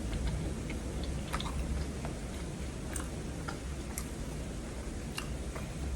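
Quiet chewing with scattered small sharp mouth clicks and smacks, over a steady low hum.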